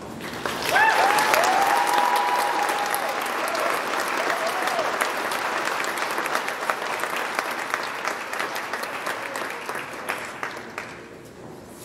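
Audience applauding, with a few cheering whoops in the first few seconds. The clapping fades away near the end.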